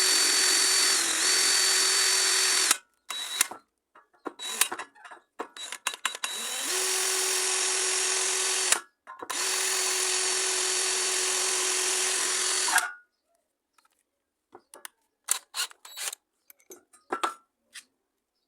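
Electric power tool running in three steady bursts with a motor whine, with short clicks and knocks between the bursts and after them.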